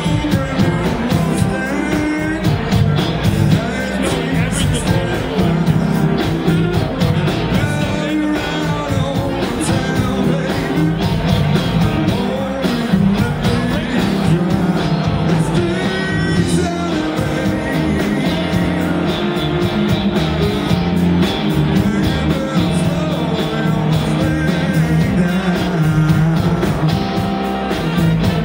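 Live blues-rock band playing: electric guitar, saxophone, keyboards and drums, with a male voice singing over it.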